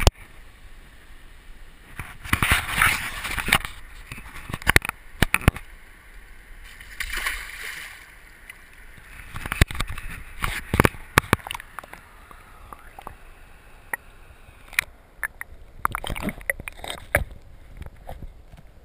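River water sloshing and gurgling around a GoPro in its waterproof housing, with sharp knocks and clicks as the housing is handled against rocks and dipped under the surface. There are two louder swells of splashing, one about two seconds in and one near the middle.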